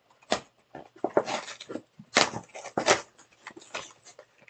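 Cardboard advent calendar box being torn apart by hand: a run of short, irregular rips and crackles.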